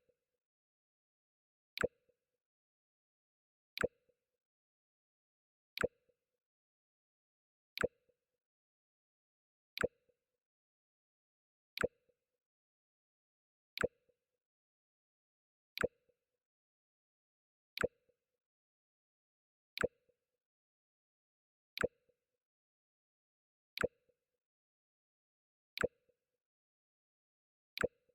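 The Mac OS X "Jump" alert sound effect, playing on repeat. It is a short, sharp blip followed by a brief low tone, sounding about every two seconds, around fourteen times in all.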